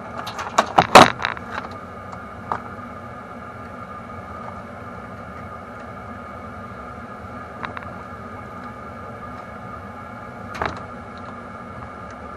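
Clattering and clicking of multimeter leads and hand tools being handled, a busy cluster in the first second or two, then a few single clicks over a steady hum.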